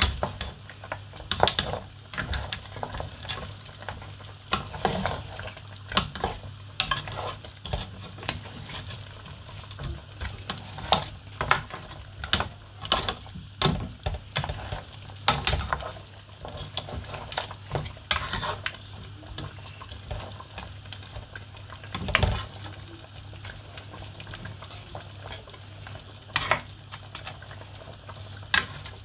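Irregular clinks and knocks of metal kitchenware, a pot lid and utensils handled around a large aluminium cooking pot, over a steady low hum and the hiss of the soup cooking in the pot.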